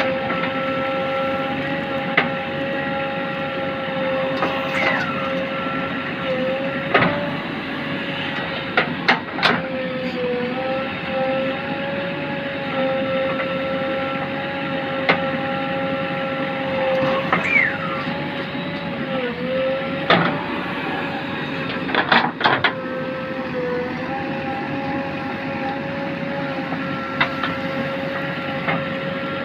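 JCB backhoe loader running under work, with a steady whine that sags briefly in pitch a few times as it takes load. Several sharp metallic clanks stand out, twice in quick pairs.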